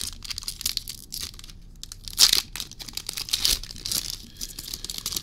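Foil Pokémon Crown Zenith booster pack wrapper crinkling and tearing as it is opened and the cards are pulled out, in irregular crackly rustles with the loudest rip about two seconds in.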